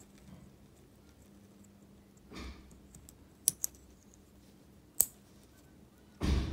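Small metal binder clip worked in the fingers: its wire handles click sharply against the clip, twice in quick succession about three and a half seconds in and once more at five seconds. Soft rustles of hands handling it come before and near the end.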